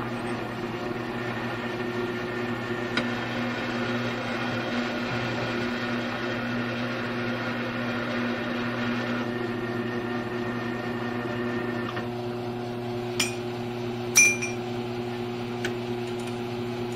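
Grizzly G1007 mill-drill running at its slowest belt speed, about 150 RPM, with its milling cutter cutting 6061 aluminum bar stock: a steady mechanical hum with higher tones that drop away about nine and twelve seconds in. Near the end come two sharp clicks, the second ringing briefly.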